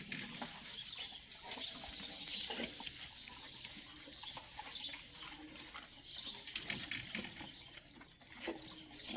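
Faint chirping, bird-like, with scattered light knocks and rustles.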